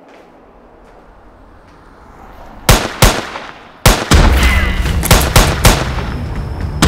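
Handgun gunshots: two sharp shots about halfway through, a third a moment later, then a quick string of four more, over a low rumble that sets in after the third shot.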